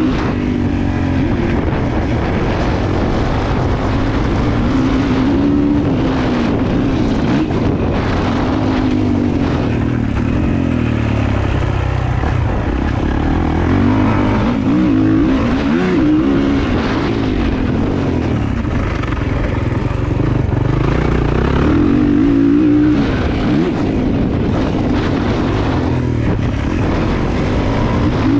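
450cc four-stroke motocross bike's engine revving up and backing off again and again as it is ridden around a dirt track, its pitch rising and falling every couple of seconds.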